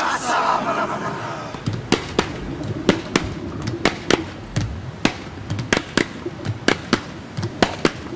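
A series of sharp knocks or hits, about two a second and unevenly spaced, over a steady rushing noise, with a brief wavering higher sound at the very start.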